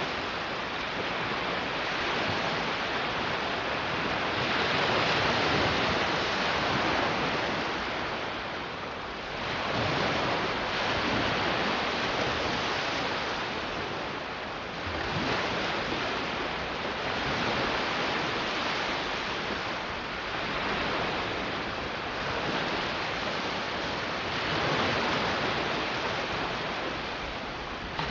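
Sea waves breaking on a beach: a steady rush of surf that swells and eases every few seconds as each wave comes in.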